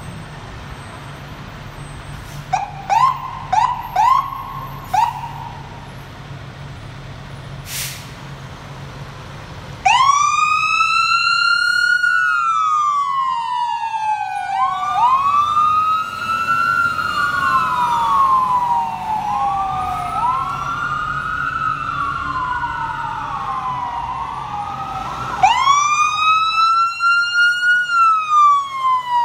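Fire trucks' Whelen electronic sirens over the low rumble of their diesel engines. First come a few short siren chirps. About ten seconds in, a siren starts a slow wail that rises and falls every few seconds. Near the end a second, louder siren starts up close and overlaps it.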